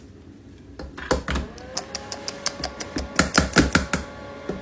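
Parboiled rice being tipped from a metal colander into a pot: a run of sharp clicks and knocks of the colander against the pot, loudest near the end. A faint steady whine comes in about a second and a half in.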